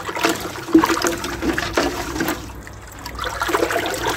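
Watery calcium carbonate slurry sloshing and swirling in a galvanized metal bucket as it is stirred with a plastic scoop, with irregular clicks and scrapes throughout.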